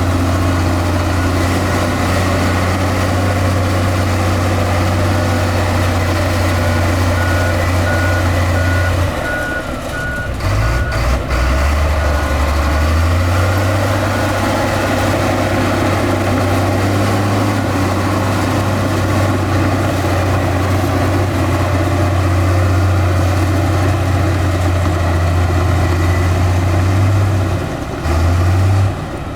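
Heavy diesel earthmoving machinery running steadily, with a reversing alarm beeping for a few seconds partway through. The engine note drops briefly about ten seconds in and again near the end.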